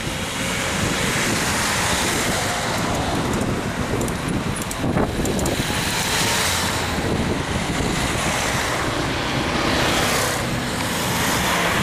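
Steady road traffic noise: car engines and tyres running on the road.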